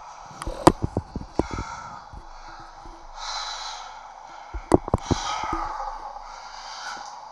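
A man straining with all his strength to bend a short steel bar by hand: forceful breaths and grunts of exertion, with two clusters of short sharp bursts, about a second in and again near five seconds, and hissing exhalations between them.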